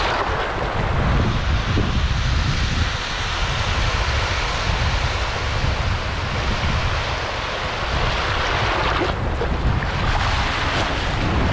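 Small waves breaking and washing up a sandy beach, with strong wind buffeting the microphone in a steady low rumble.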